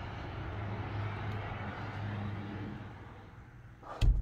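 Steady outdoor rumble of distant traffic with a low hum, fading about three seconds in, then one sharp knock near the end.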